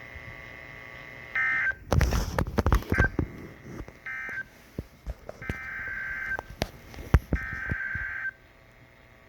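Radio receiver picking up about five short bursts of data-like beeping tones, with crackling static and sharp clicks between them.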